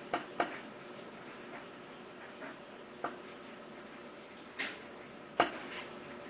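Scattered clicks and short light scrapes of a hand tool working on powder-coated metal while threads are cleaned of coating, with a sharper knock about five seconds in, over a faint steady hum.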